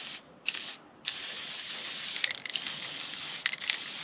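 Aerosol can of old spray-on gasket sealant hissing as a head gasket is coated: two short squirts, then a long, nearly continuous spray from about a second in, breaking up briefly a few times. The sealant is about 15 years old and comes out chunky.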